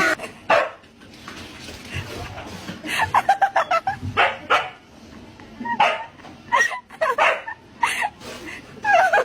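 A dog barking: short sharp barks in irregular bursts, with a quick run of several about three seconds in.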